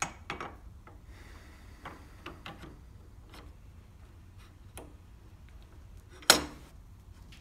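Scattered small metallic clicks and taps of hand tools and a boring bar being fitted and clamped into a lathe's quick-change tool post holder, with one much louder metal clank about six seconds in.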